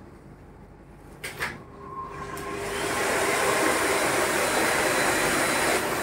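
AGARO Icon 1600-watt bagless cyclonic vacuum cleaner starting up: two clicks about a second in, then the motor spins up with a rising whine over a couple of seconds and settles into a loud, steady running noise.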